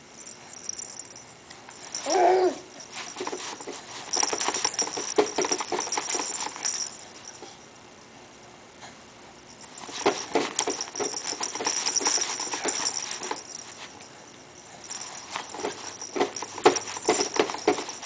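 A soft fabric ball toy rattling in quick, jangly spells as a baby shakes and waves it, three times over. About two seconds in there is a short pitched vocal sound from the baby.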